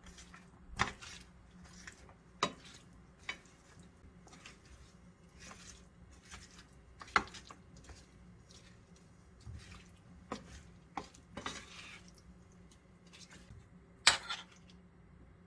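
Wooden spatula stirring and folding a chunky mayonnaise-dressed salad in a metal bowl: soft wet stirring broken by irregular knocks and scrapes of the spatula against the bowl, the loudest near the end.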